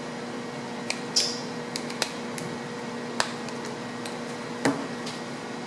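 A few light clicks and taps from an opened iPhone 5C and small repair tools being handled, over a steady background hum.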